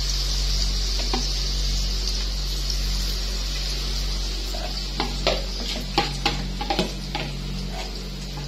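Bakwan (vegetable fritter) batter sizzling steadily in hot oil in a frying pan. Between about five and seven seconds in, a spoon scrapes and taps against the batter bowl several times.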